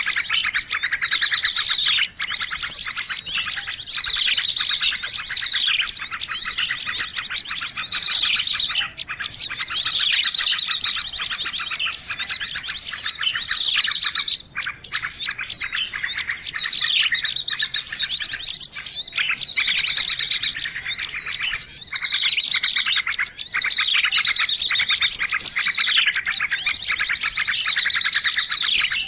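Bird-lure recording of many small birds chirping and twittering densely without pause, high-pitched and overlapping, with falling whistled notes repeating every couple of seconds.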